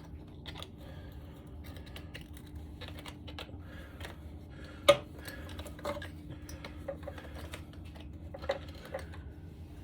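Hand tools working on the engine: a run of small irregular metallic clicks and taps, likely a flathead screwdriver prying at a part, with one sharper knock about five seconds in, over a faint steady hum.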